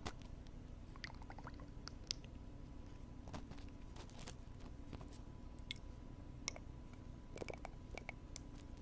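Close-miked ASMR ear-cleaning sounds: ear-cleaning tools working against a binaural microphone's ear, making irregular soft clicks, scratches and crackles over a steady low hum.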